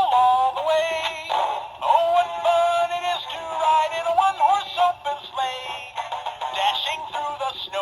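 Gemmy Shotgun Hunter Snowman animatronic playing its built-in song: a synthetic-sounding sung voice over a backing track, thin and with little high treble.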